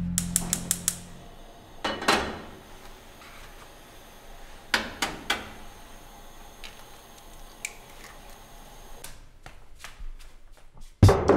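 Sharp knocks and clicks of kitchen work at a stove: eggs being cracked over a frying pan and utensils clattering, a few separate strikes with quiet between. Music fades out about a second in, and music with drums starts again near the end.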